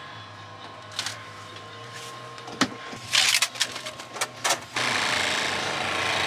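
Clear plastic clamshell food container being handled and snapped shut: a few sharp clicks, then a cluster of crackles and snaps, over a low steady hum. Just under five seconds in, a louder steady rushing noise takes over.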